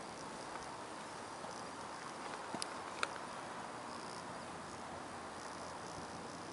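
Steady faint background hiss with a faint high chirring that comes and goes, and two small clicks about two and a half and three seconds in.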